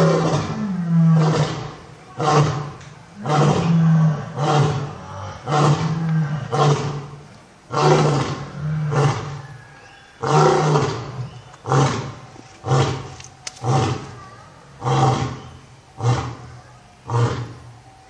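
Male lion roaring: a bout of deep calls about one a second, the first ones long and the later ones shorter, grunt-like.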